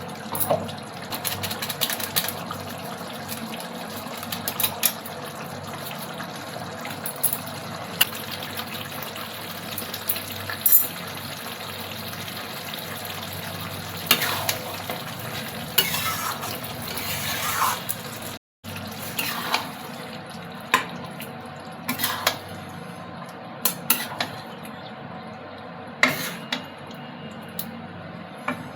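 Vegetables cooking in a pan with a steady hiss, and a spoon clinking and scraping against the pan now and then as it is stirred. The sound cuts out for an instant about two-thirds of the way through.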